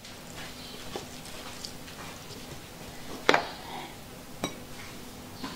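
A few light clinks and knocks of tableware being handled, the sharpest about three seconds in, with another a second later, over quiet room tone.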